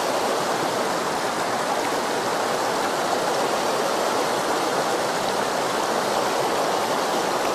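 River water flowing steadily over a rocky bed: an even, unbroken rush.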